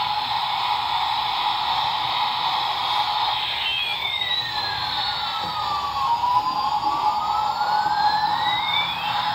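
Battery-powered toy military helicopter's electronic siren, wailing slowly up and down about once every five or six seconds, over a steady whir from its motor and spinning rotors.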